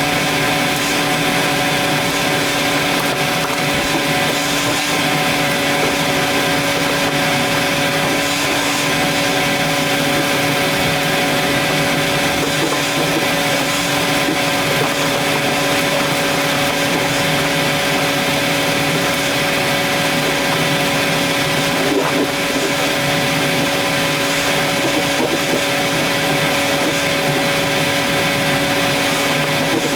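Vacuum cleaner running steadily: a constant motor whine over the rush of air, with no change in pitch or level.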